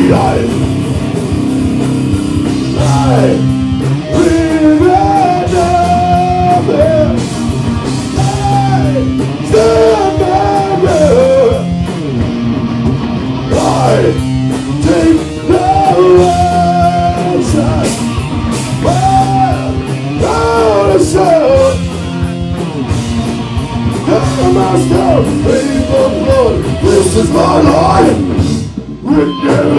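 Live rock band playing loudly: guitars, bass and drum kit, with a wavering melody line on top.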